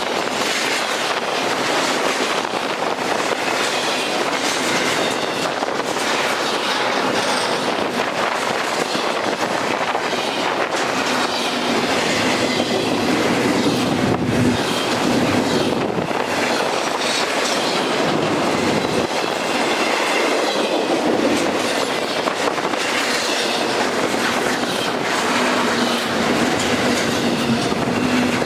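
Freight cars rolling past on the track, their steel wheels running over the rails with a loud, steady noise.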